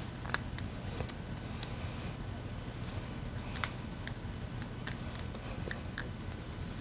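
Scattered light clicks and taps of hand tools and parts being handled while a scooter engine is stripped down, with two sharper clicks, one near the start and one about halfway through, over a faint steady low hum.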